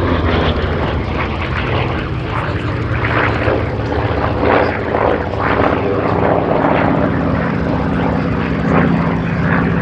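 Grumman F8F Bearcat's radial piston engine running at display power during aerobatics, a loud, steady drone.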